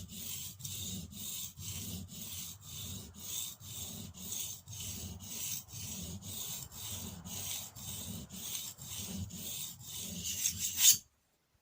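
Spokeshave blade being rubbed back and forth on a water-soaked sharpening stone, a steady scraping at about three strokes a second. It stops abruptly near the end with one louder scrape.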